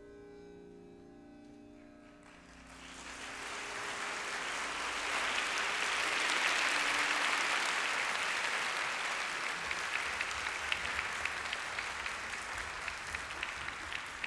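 The closing chord of the opera music is held for about two seconds and fades, then audience applause swells up and carries on, with individual claps standing out toward the end.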